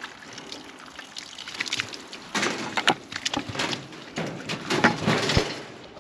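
Organophosphate sheep dip being applied to a maggot-struck sheep's fleece, the liquid sloshing and splashing in irregular spurts with crackly handling noise.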